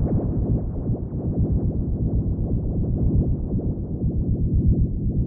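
Electronic synthesizer music with a fast, low pulsing beat.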